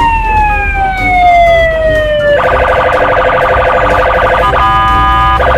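Police car siren: one long wail sliding slowly down in pitch, then about two seconds in it switches abruptly to a steady, blaring tone that breaks off briefly twice near the end.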